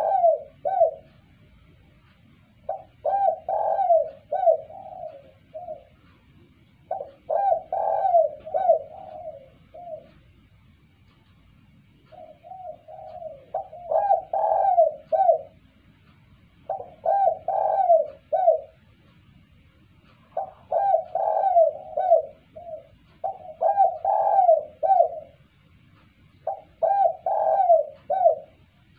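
Spotted dove (tekukur) cooing: a phrase of several short coos, repeated about every three to four seconds, eight times over.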